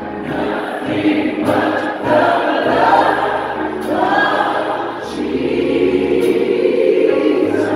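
Gospel choir singing sustained chords over held bass notes.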